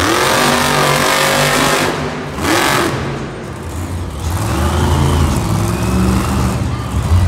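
Monster Mutt Dalmatian monster truck's supercharged V8 revving hard as the truck rears up on its back wheels, surging at the start and again about two and a half seconds in, easing briefly and then climbing again.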